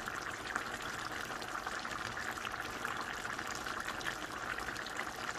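Pot of lechon paksiw simmering uncovered, the sauce bubbling and crackling steadily as it cooks down.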